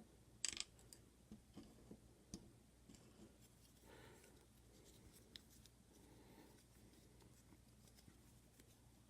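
A few faint, short metallic clicks and taps from the small parts of a Kwikset deadbolt cylinder being handled as it is taken apart, with near silence between them.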